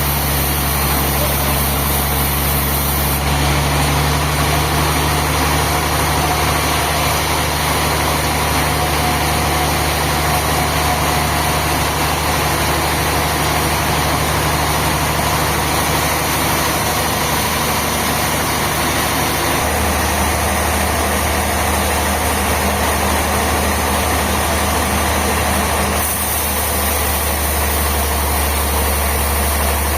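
Sawmill machinery running steadily, a continuous mechanical engine drone with a strong low hum. The sound changes abruptly about three seconds in, again near twenty seconds and near twenty-six seconds.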